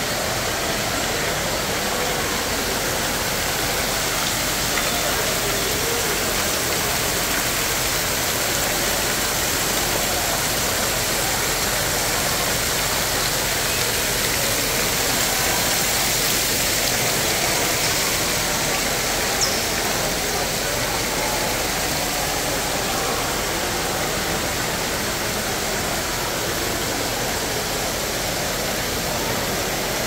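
Steady rush of splashing fountain water mixed with an indistinct murmur of voices, with one short click a little past the middle.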